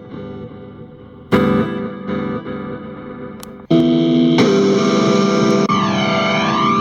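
Fender Stratocaster electric guitar played with the fingers through a Hotone Pulze Mini modeling amp, with effects and some distortion. Notes and chords ring and fade, a fuller chord is struck about a second and a half in, and a loud chord is held through the second half. Near the end a sweeping effect moves through the held chord.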